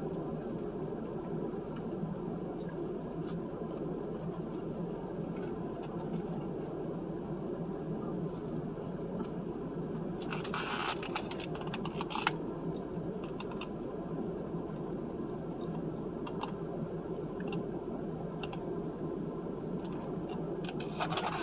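Eating sounds at a mukbang: chewing with scattered small clicks and a couple of brief rustles about halfway through, over a steady low hum.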